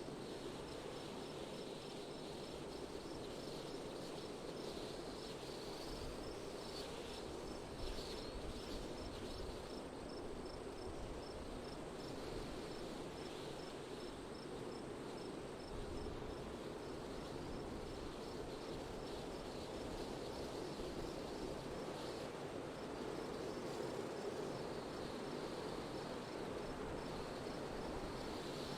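Steady wind noise, with an insect chirping in a faint, even high pulse a few times a second.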